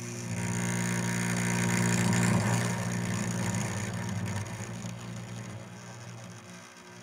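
Cello bowed low and sustained, a rough, growling drone that swells to its loudest about two and a half seconds in, then fades away near the end.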